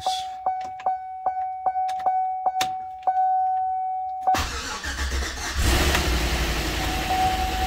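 The truck's warning chime sounds as a steady tone ticking about two to three times a second. About four seconds in, the Chevy Avalanche's 5.3-litre V8 cranks and fires up, then runs with the ticking of AFM lifters that the owner takes for damaged. The chime comes back near the end.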